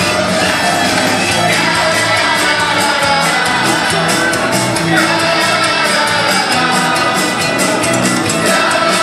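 Loud music with singing and a steady beat, played over a carnival parade float's sound system.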